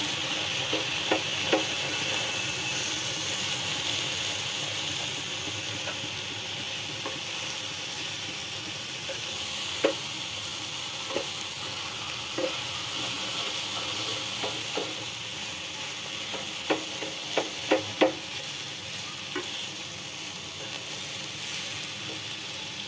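Chowmein stir-frying in a non-stick wok: a steady frying sizzle while the noodles and vegetables are tossed with a spatula, with scattered clicks and scrapes of the spatula against the pan and a few louder knocks past the middle. This is the final mixing just after the soy sauce and vinegar go in.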